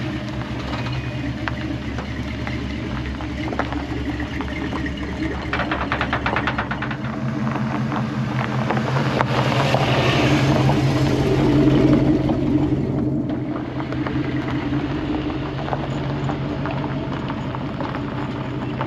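Swapped-in 6.0-litre LS V8 in a Chevrolet squarebody pickup, running as the truck moves off under its own power. The engine and exhaust grow louder around ten to twelve seconds in, then ease off.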